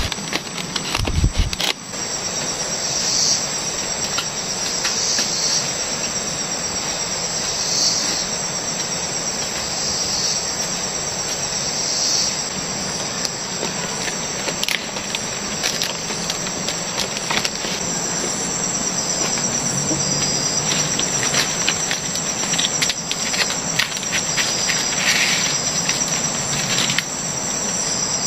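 Tropical forest insect chorus: a steady high-pitched drone of crickets and cicadas, swelling in a louder pulse about every two seconds in the first half. A few dull knocks sound right at the start, and light clicks and rustles of handled leaves and bamboo are scattered throughout.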